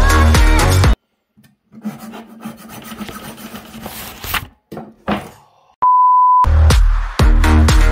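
Background music cuts off about a second in, and a small hacksaw rasps steadily through the die-cast body of a model car for about three seconds. After a brief burst of noise, a steady test-pattern beep sounds for about half a second, and the music starts again.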